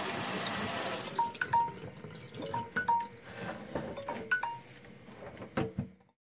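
Tap water running into a stainless steel sink over a glove, shut off about a second in, then water dripping in irregular short plinks for several seconds. A single knock comes near the end before the sound cuts off.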